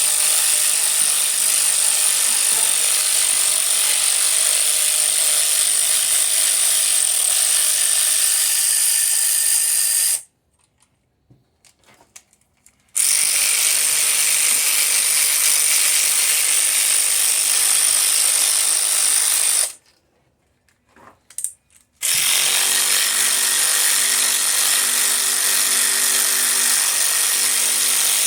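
A hand-held power tool runs steadily with a strong high hiss, in three long runs broken by two sudden stops of two to three seconds each.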